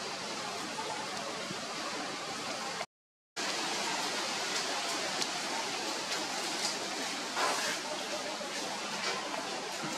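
Steady outdoor background noise, an even hiss with no distinct source, broken about three seconds in by a brief dropout to silence; a few faint ticks.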